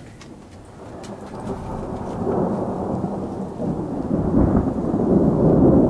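Rolling thunder: a low rumble that starts about a second in, builds steadily, and is loudest near the end.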